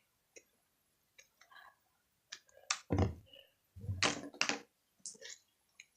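Slime being squeezed and pulled in the hands: scattered soft clicks and squishy noises, with a few louder ones about three and four seconds in.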